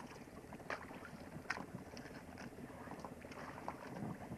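Faint scattered clicks and scrapes of a live red king crab's spiny shell and legs being handled in rubber gloves against an inflatable boat's tube.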